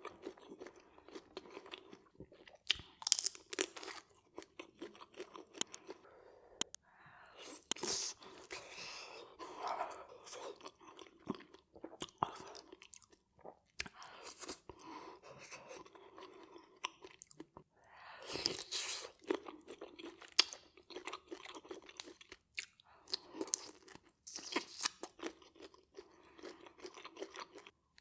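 Close-miked eating of a saucy prawn and potato seafood boil: wet chewing, biting and sharp mouth clicks, coming in bursts with short pauses between.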